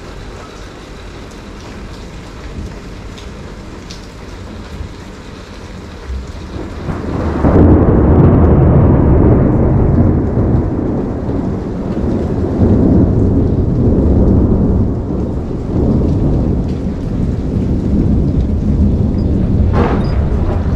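Tropical thunderstorm: steady rain falling, then, about seven seconds in, a long roll of thunder sets in and rumbles on, swelling and easing, for most of the rest.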